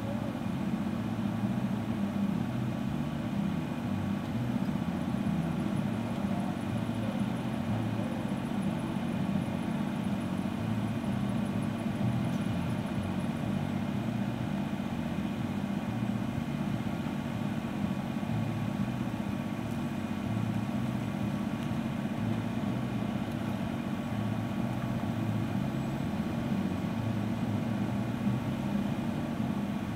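Heavy diesel truck engines running steadily at low speed with a continuous low rumble.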